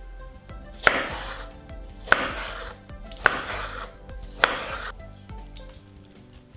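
Knife chopping tomato on a wooden cutting board: four evenly spaced chops, about one every second and a bit, each a sharp knock followed by a brief hiss.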